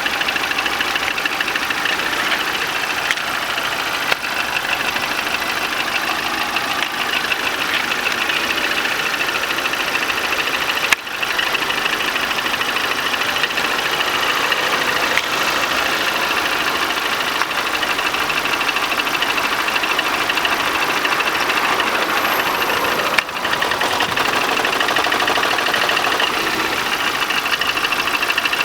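Car engine idling steadily at operating temperature, with the extraneous noise that the owner says appears only once the engine is warm.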